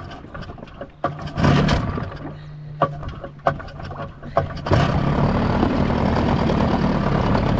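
Small Yamaha outboard motor being pull-started in neutral: a pull on the starter cord about a second in, a few sharp clicks, then the engine catches a little before five seconds in and runs steadily at idle.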